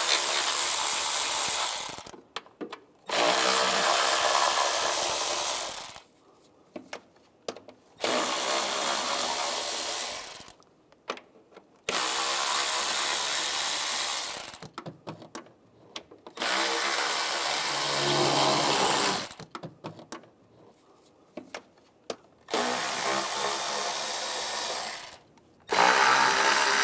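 Cordless power tool spinning an 8 mm socket to back out intake manifold bolts on a 3.6L V6. It runs in about seven bursts of two to three seconds each, with short pauses and a few clicks between bolts.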